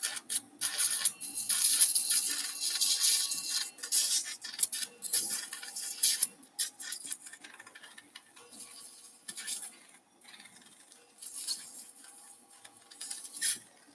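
Surgical suction tip hissing and sputtering in bursts as it draws blood and fluid from an open ear-canal wound. The bursts come thick and fast for the first six seconds or so, then only now and then.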